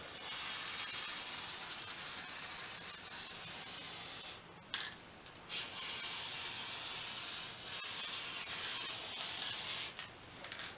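Aerosol can of spray glue hissing in two long, steady sprays, with a pause of about a second some four seconds in; the spray stops near the end.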